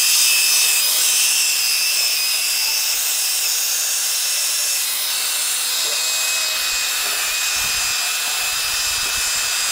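Drill spinning a brass wire brush against an aluminium Reliant engine block, cleaning it: a steady high motor whine with the scratchy hiss of the brush on the metal.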